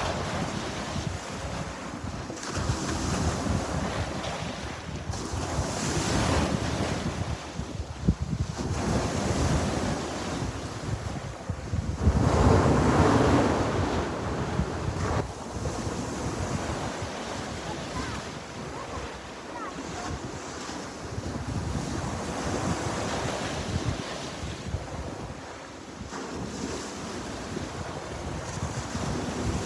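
Sea waves breaking and washing on the shore, swelling and falling back every few seconds, the biggest surge about twelve seconds in, with wind buffeting the microphone.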